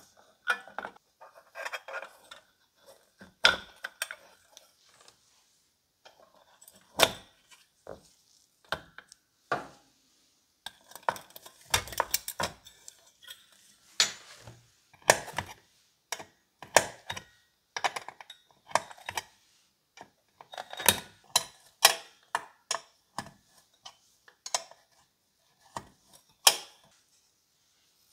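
Small painted steel clips and parts being fitted into the sheet-steel housing of an electric hotplate: irregular sharp metallic clicks, clinks and taps as the pieces are handled and snapped into place.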